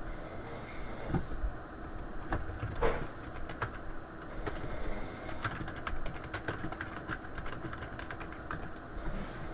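Irregular clicks of typing on a computer keyboard, heard through voice-call audio over a faint steady hum.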